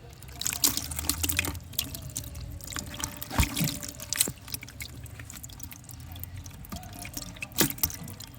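Hands splashing and sloshing in shallow water, with trickling and dripping between a few sharper splashes: a cluster early, then about three and a half, four and seven and a half seconds in.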